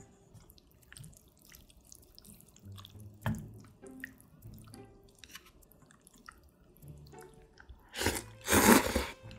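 Chopsticks stirring thin wheat noodles in broth in a stainless steel bowl: soft wet sloshing and light clicks against the metal, with one sharper clink about three seconds in. Near the end, a loud slurp as a mouthful of noodles is sucked up.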